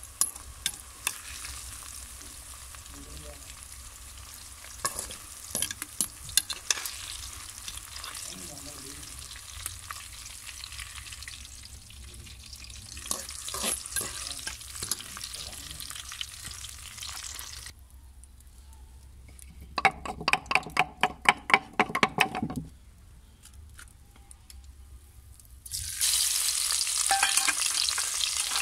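Sliced onions frying in oil in an aluminium wok, sizzling steadily while a wire skimmer scrapes and stirs them. After a quieter stretch comes a quick run of knocks. Near the end a paste hits the hot oil and it bursts into a loud, steady sizzle.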